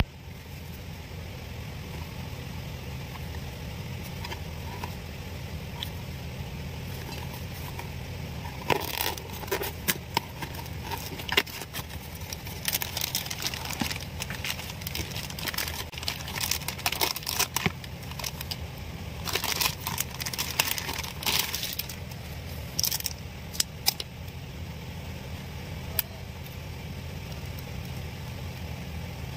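Toy packaging being handled and opened: crinkling, tearing and plastic clicks in irregular bursts from about nine seconds in until near twenty-four seconds, over a steady low hum.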